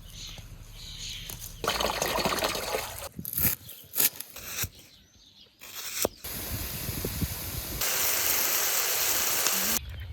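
Rushing and pouring water in several short stretches that start and stop abruptly, with a few sharp knocks a few seconds in.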